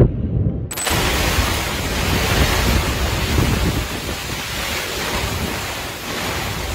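Storm wind with a low rumble on the microphone, cutting under a second in to a steady loud hiss of gale-force wind and driving rain across a sailboat's deck.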